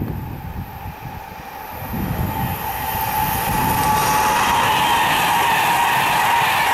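Class 390 Pendolino electric train passing at speed, after a low rumble of wind on the microphone. From about three seconds in, a loud rush of wheel and air noise builds and holds steady, with a high whine running through it.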